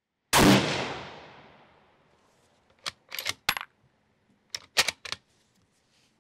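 A single shot from a Sabatti Tactical EVO bolt-action rifle in 6.5 Creedmoor, its report dying away over about a second and a half. About three seconds in come the metallic clicks of the bolt being worked, opened and drawn back, then pushed forward and locked about two seconds later.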